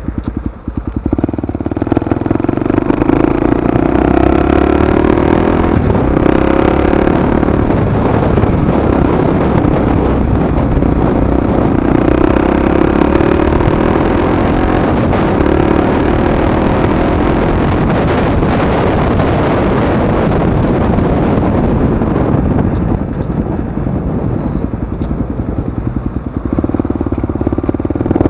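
Honda XR250 Tornado's single-cylinder four-stroke engine through its aftermarket exhaust, heard on board while riding. It picks up after a quieter first second or so, then runs strongly with the note rising and falling under the throttle. It eases off for several seconds near the end, then pulls again.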